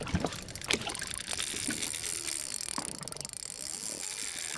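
Shimano Twin Power 5000 SW spinning reel working under load while fighting a hooked bluefin tuna: fine rapid ticking over a steady high hiss, with a few faint knocks.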